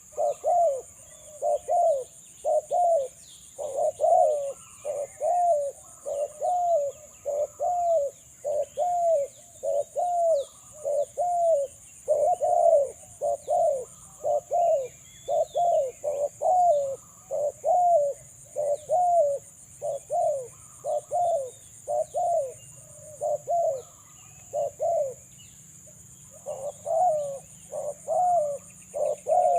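Spotted dove cooing over and over in a continuous chain of short, arched notes, roughly one to two a second, with a brief pause about four seconds before the end. Small birds chirp faintly in the background.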